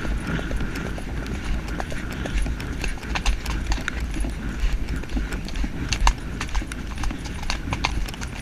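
A horse's hoofbeats on a grass track at a quick pace, with many sharp clicks over a steady low rumble.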